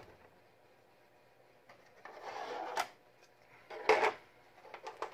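Hard plastic Playmobil toy pieces being handled: a short scraping rub about two seconds in that ends in a click, then a quick clatter of small knocks about four seconds in, and a few light ticks near the end.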